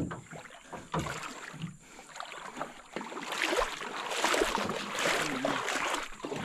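Two knocks on a small aluminium boat hull about a second apart, then water splashing and sloshing around the hull and wading legs from about three seconds in.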